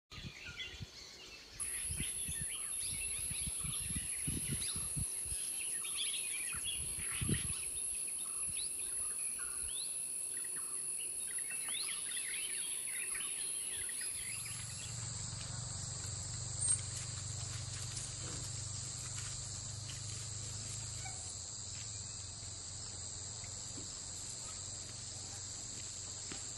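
Forest ambience: a steady high-pitched insect drone with scattered bird chirps. About halfway through, the drone gives way to two lower steady insect tones over a low hum.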